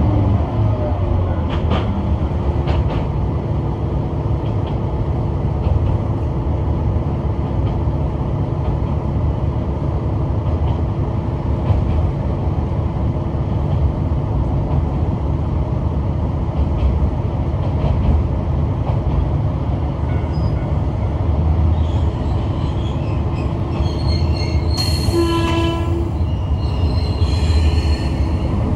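Kishu Railway diesel railcar running along the track, heard from inside, with a steady low rumble and a held engine tone. Near the end, about 25 s in, a short pitched horn-like blast sounds, alongside a high squeal from the wheels.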